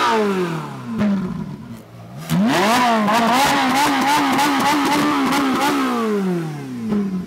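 Ferrari 458 Italia's naturally aspirated V8 through its stock exhaust, revving: the revs fall away, blip once, then rise sharply, hold high with some wavering for about three seconds and drop again as the car moves off.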